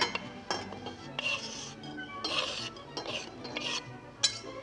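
Metal utensil scraping and clinking in a pan as shallots are stirred with a little butter. There are about four short scraping strokes, with sharp knocks at the start, about half a second in, and near the end.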